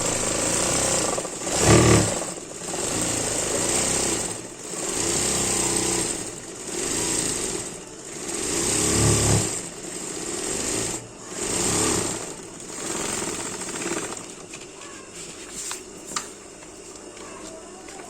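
Sewing machine running in repeated short bursts of a second or two, its needle rapidly punching a line of holes through paper to make a tear-off perforation. The runs stop about fourteen seconds in.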